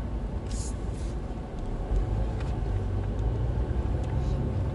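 Steady low road and engine rumble inside the cabin of a Mercedes-Benz with a 350 hp diesel while driving, with a short faint hiss about half a second in and a few faint ticks.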